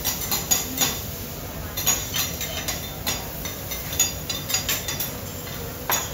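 Metal spatulas clacking and scraping on a teppanyaki hot plate in quick, irregular strikes, with food sizzling on the griddle.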